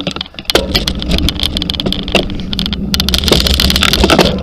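Wind rushing over the microphone of a camera on a road bike descending fast, rising about half a second in and again near the end as speed builds, with frequent sharp rattles and knocks from the rough road.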